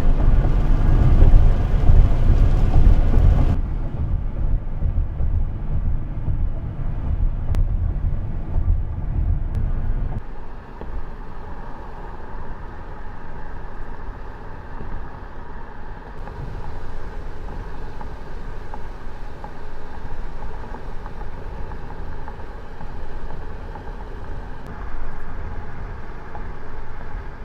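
Steady road and engine noise inside a moving car's cabin. The higher hiss drops away abruptly about three and a half seconds in, and the low rumble eases about ten seconds in.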